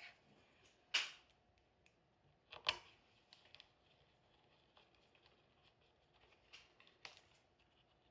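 A few sharp clicks and taps of a small screwdriver and screws being handled on a laptop's plastic case. The two loudest come about a second in and at two and a half seconds, with fainter ticks later.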